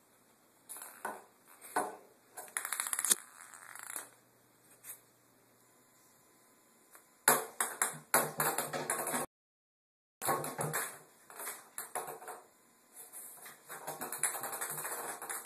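A celluloid ping pong ball clicking and bouncing as a kitten bats it about on tile and in a bathtub, in irregular bursts of quick light taps with short quiet gaps between. The sound cuts out completely for about a second midway.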